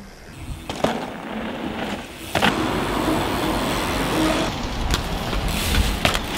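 Downhill mountain bike ridden fast over a dirt trail: a steady rush of tyre and wind noise with deep rumble, building up within the first second, and a sharp clack about two and a half seconds in.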